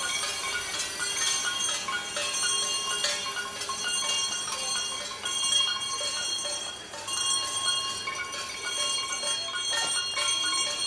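Clapping and knocking at an uneven rate, with several steady high ringing tones over it.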